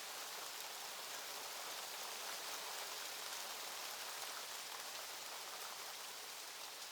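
Soft hail storm: a dense, steady patter of small hailstones over a hiss of rain-like noise, easing slightly toward the end.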